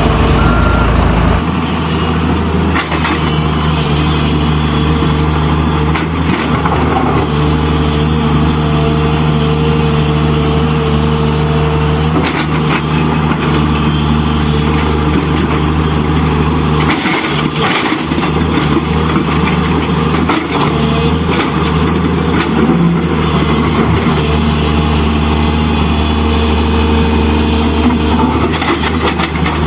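Heavy-vehicle engine sound running steadily, a low even hum with a few short knocks here and there.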